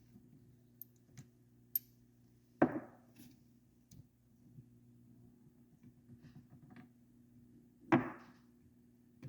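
Two sharp knocks, one a few seconds in and one near the end, with fainter clicks and taps between them: tools and engine parts handled and set down on a workbench while stripping an engine. A steady low hum sits underneath.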